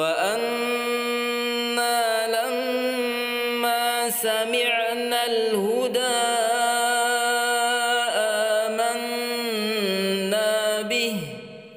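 A man reciting a Quran verse in slow, melodic tartil chant: one long phrase of held notes with slow rises and falls in pitch, trailing off near the end.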